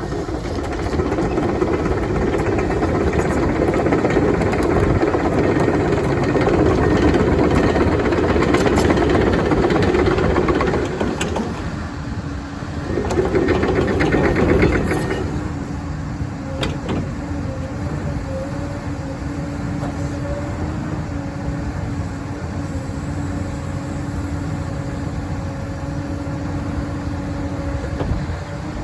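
Komatsu PC240NLC-11 hydraulic excavator's diesel engine running hard under load, easing off briefly about twelve seconds in and surging again. A little past halfway it drops to quieter, steady running with a constant hum, with a few clanks along the way.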